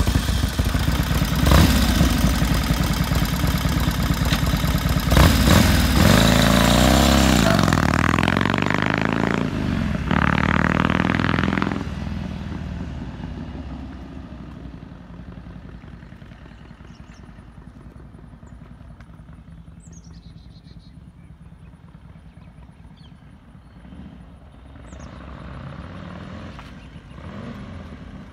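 1948 Indian Chief's side-valve V-twin running loud and close, then revving in rising and falling sweeps as the motorcycle pulls away. About twelve seconds in it fades to a faint distant engine note, which grows louder again near the end.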